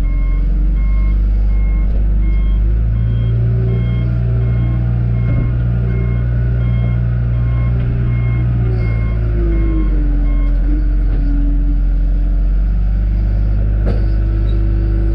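John Deere 310G backhoe's diesel engine running with its backup alarm beeping about twice a second as the machine reverses. The engine works harder for several seconds mid-way, and near the same time the beeping stops and the engine eases back.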